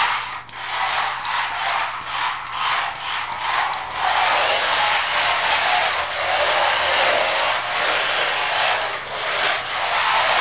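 Electric RC drift car running on a wooden floor: a high motor whine with the tyres scrubbing over the boards. For the first four seconds the throttle is blipped on and off about three to four times a second; after that it is held mostly steady, with a few brief lifts near the end.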